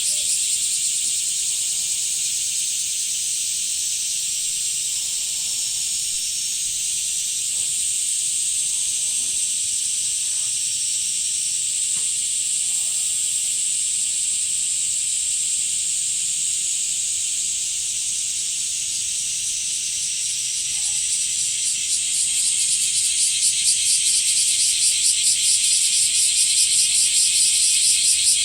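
Chorus of blackish cicadas (Cryptotympana facialis) calling: a dense, steady, high-pitched buzzing hiss that grows louder and more pulsing about three-quarters of the way through.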